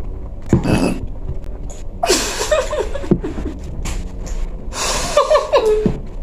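Three non-speech vocal bursts from a woman. The first is short and comes about half a second in. The second and third are longer and breathy, each falling in pitch, starting around two and five seconds in.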